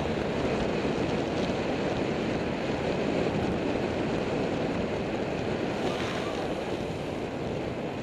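Steady wind rush over an action camera's microphone on a road bike moving at speed.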